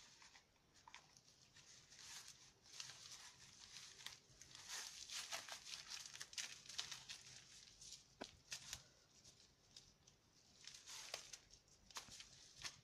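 Bubble wrap and plastic sheeting crinkling and rustling under two young cats wrestling on it, in irregular spells with a few sharp crackles.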